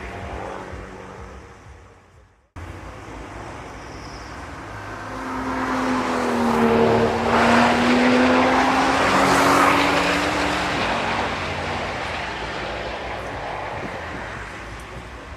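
A race car's engine passing at speed: it builds over a few seconds, peaks with its note dropping slightly as it goes by, then fades away. An earlier car's fading sound ends abruptly about two and a half seconds in.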